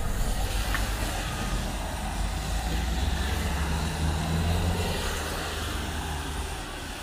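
Road traffic on a wet street: car and van engines running past, with tyre hiss on the wet road. A low engine hum builds to its loudest about four to five seconds in, then fades.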